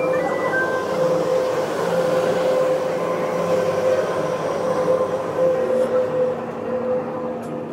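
Toronto TTC subway train running through the station beside the platform: a loud, steady rumble of wheels and traction motors with a steady hum in it.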